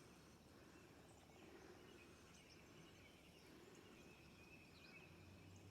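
Near silence: faint outdoor ambience with a few distant bird chirps.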